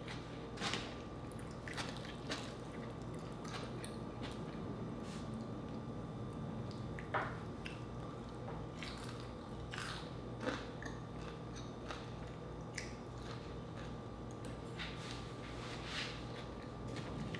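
Close-miked eating: chewing with wet mouth smacks and bites, with scattered sharp crunches and clicks, the loudest about 7 and 10.5 seconds in, over a steady low hum.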